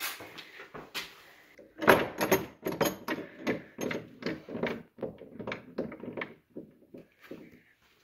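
An old door with a metal latch bar being unlatched and opened: a click, then from about two seconds in a long run of sharp knocks and rattles that are loudest at first and die away near the end.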